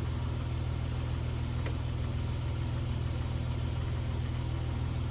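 The 3.3-litre V6 of a 1990 Dodge Grand Caravan idling steadily, with one faint click about a second and a half in.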